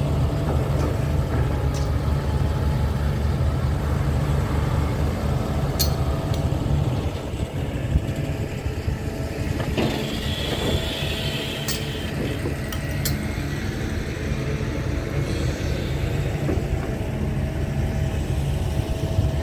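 Diesel engine of a Hyundai 300-class excavator running steadily under load as it swings its long-reach clamshell grab bucket. A few short sharp clicks and a brief hiss about ten seconds in.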